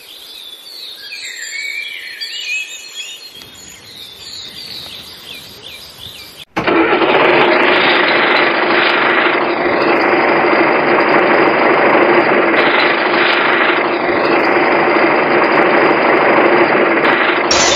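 Small birds chirping for about the first six seconds, then an abrupt cut to a loud, steady engine running, an engine sound effect laid over the toy vehicles.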